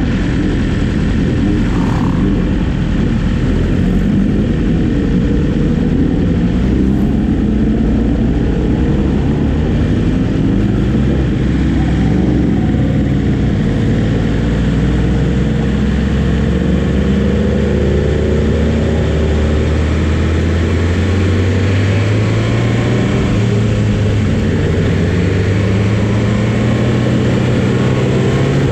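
Motorcycle engines running, their pitch climbing steadily over the last several seconds as the revs rise.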